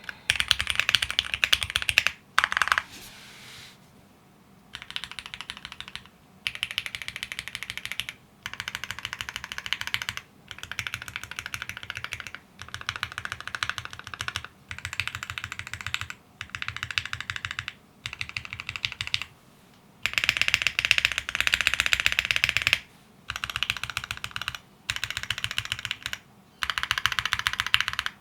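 Typing on a Qwertykeys QK75 mechanical keyboard with lubed Gateron CJ linear switches, a polycarbonate plate and PBT keycaps. Rapid keystrokes come in bursts of a couple of seconds with short pauses between them, and there is a louder, faster stretch about two-thirds of the way through.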